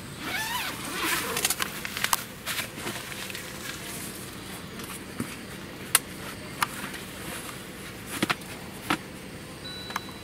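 Scattered sharp clicks and knocks of a folding camping shelf unit being put together, with its shelves fitted inside. A short stretch of rustling and squeaking comes in the first second and a half.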